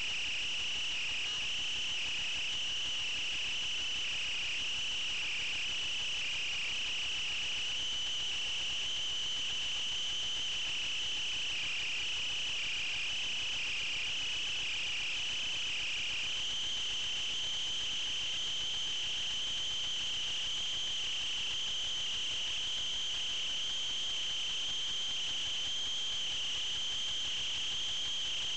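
Crickets chirping in a steady, high-pitched chorus that does not let up.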